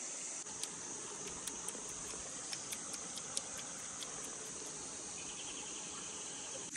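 Steady high-pitched insect chorus, with a few faint clicks scattered through it.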